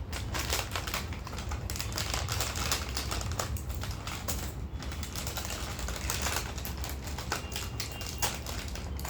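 Crinkly plastic snack packet being opened and handled, a dense, irregular crackling.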